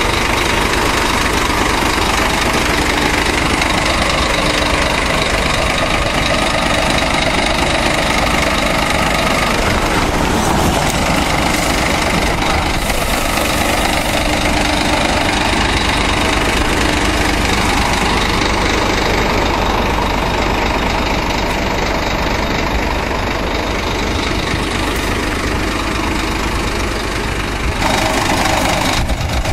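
Ford Ranger pickup driving on a dirt road, heard from inside the cab: a steady mix of engine noise and tyre and road rumble.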